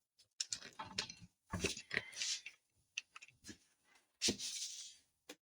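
Scattered light knocks and clicks with brief rustles, irregular and separated by quiet gaps: wood and door hardware being handled by hand.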